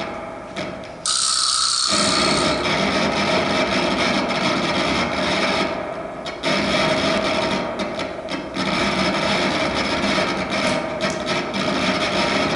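Live improvising trio of electric guitar, alto saxophone and drums playing a dense, noisy texture over a few held pitches. The full sound cuts in abruptly between one and two seconds in, and thins briefly around six seconds.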